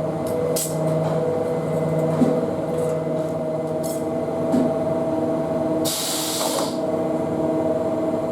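Mitsubishi ML2512HV-40CF laser cutting machine with a 4 kW oscillator running, a steady whining hum of several tones. A few brief hisses, and a stronger hiss of about a second near six seconds in.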